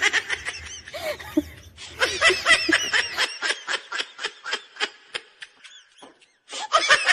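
High-pitched laughter: a rapid string of short laughs that slows and fades away, then another burst of laughter near the end.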